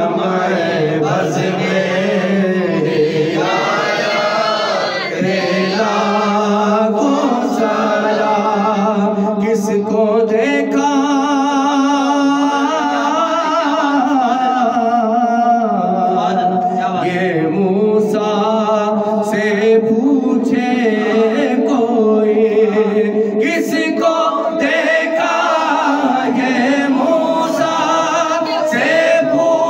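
Voices singing a naat, an Islamic devotional hymn, in long held, wavering chant-like lines.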